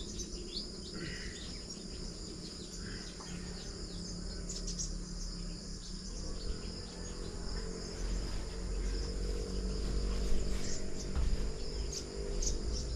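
A steady, high-pitched chorus of insects chirring, with a few short bird chirps scattered through it and a low steady hum underneath.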